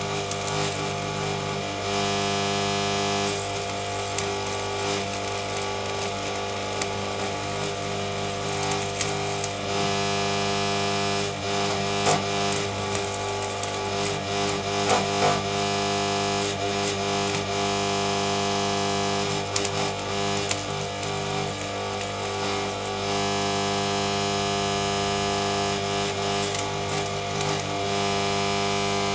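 Stick (MMA) welding arc from a Draper inverter welder, crackling and hissing irregularly over a steady hum.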